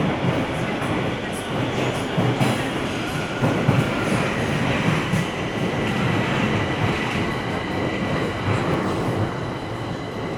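Bucharest Metro train running through a tunnel, heard from inside the car: a steady rumble of wheels on rails, with a faint, high, steady whine above it.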